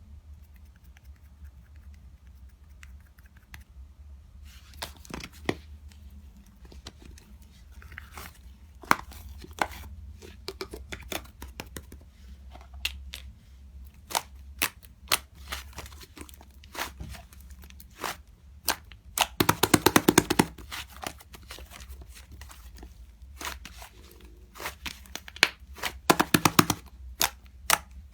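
Slime being pressed and squished by hand, trapped air popping in sharp clicks and crackles, with two dense crackling runs about two-thirds of the way through and near the end. A steady low hum underneath.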